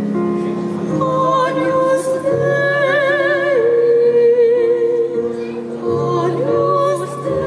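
Operatic singing: a high voice with wide vibrato enters about a second in and holds long notes over sustained instrumental accompaniment.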